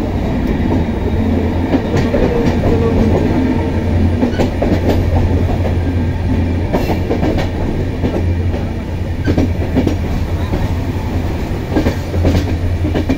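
Passenger train running, heard from inside the coach: a steady low rumble with the clickety-clack of the wheels over the rail joints.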